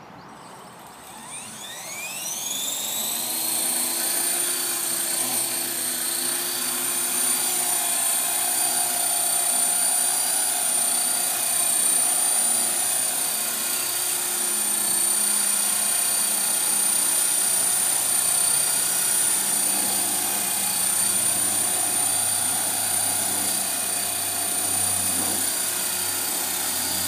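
HobbyKing HK-450 electric RC helicopter spooling up: its motor and gear whine rises in pitch over the first few seconds. It then holds a steady high whine with rotor noise as the helicopter runs at flying speed.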